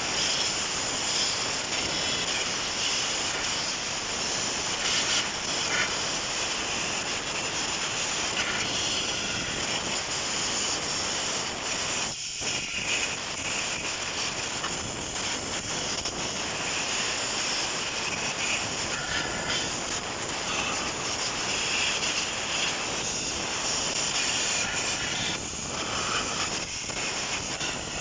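Compressed air blowing a steady hiss onto the plastic squirrel-cage wheel of a car's AC blower fan, with a short break about halfway through. It is blowing off caked dust and dirt that had unbalanced the fan and made it noisy.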